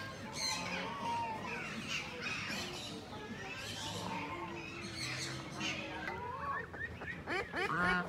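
Ducklings peeping: a busy mix of high chirps, with a quick run of louder peeps, each rising and falling, near the end.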